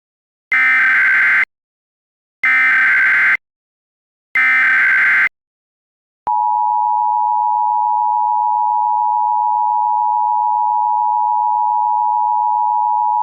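Emergency Alert System tones for a severe thunderstorm warning: three evenly spaced one-second bursts of SAME header data tones, then, about six seconds in, the steady two-tone EAS attention signal starts and holds.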